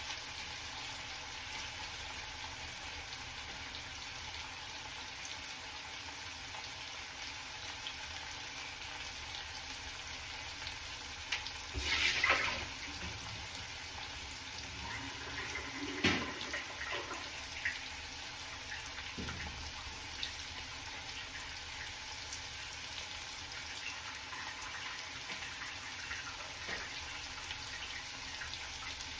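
Potatoes frying in hot oil, a steady sizzle, with a brief louder rush about twelve seconds in and a single knock about four seconds later.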